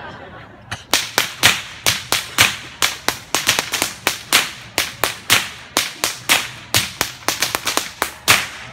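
A pair of whips cracked in a fast, steady rhythm, about three to four sharp cracks a second, starting about a second in and stopping near the end.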